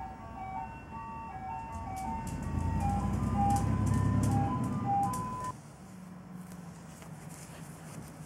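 An ice cream truck's chiming jingle tune plays outside while the truck's engine rumbles past, loudest about three to five seconds in. At about five and a half seconds it cuts off abruptly to a quieter faint hum.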